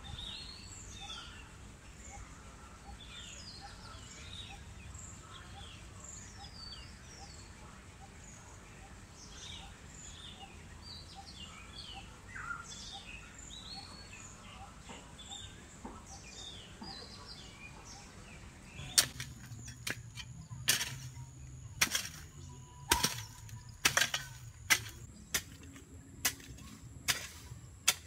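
Birds chirping and calling over a quiet rural background. About two-thirds of the way in, a hoe blade starts chopping into packed red earth, about ten sharp blows roughly a second apart, digging up cassava roots.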